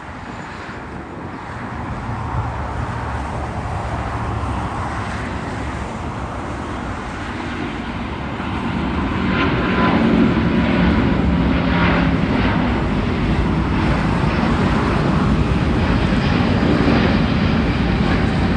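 Airbus A350-900's Rolls-Royce Trent XWB turbofan engines at takeoff thrust as the jet leaves the runway and climbs out. A steady jet rumble that grows louder about two seconds in and again around nine seconds, then holds loud.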